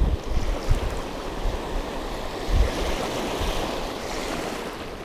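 Small waves washing and breaking in shallow water at the shoreline, with wind buffeting the microphone in low thumps, strongest about two and a half seconds in.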